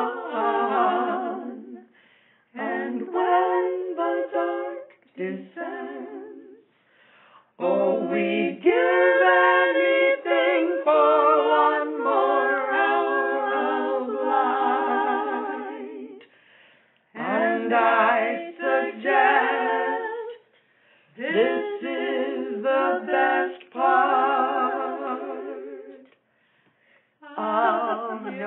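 A cappella singing by a trio of women, in phrases of a few seconds broken by short pauses.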